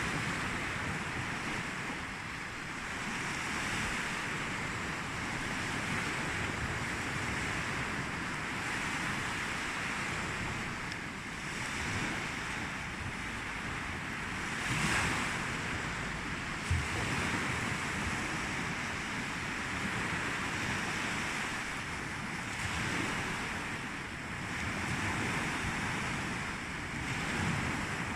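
Sea waves washing in, swelling and easing every few seconds, with one louder wave about halfway through. Wind rumbles on the microphone.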